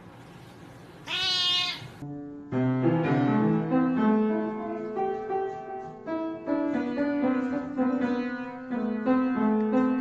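A cat meows once about a second in. Then piano notes sound, several at a time and changing every half second or so.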